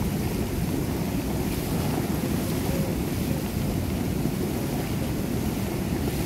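Steady wash of seawater churning and surging in the shallows, with wind buffeting the microphone.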